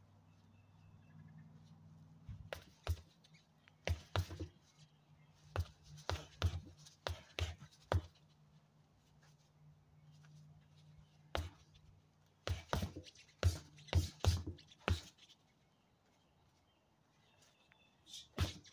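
Punches from 16 oz boxing gloves landing on a stack of rubber tires: sharp thuds in quick combinations of two to several hits, with pauses of a second or more between combinations.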